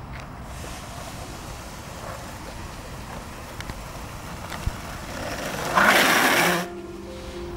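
Longboard wheels rolling on asphalt: a steady rumble that builds into a loud rushing noise as the board passes close by about six seconds in, then drops off suddenly.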